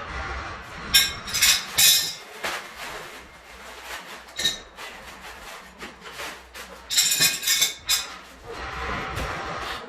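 Metal tools and parts clinking and knocking as they are handled, in a cluster of sharp strikes about a second in and another about seven seconds in.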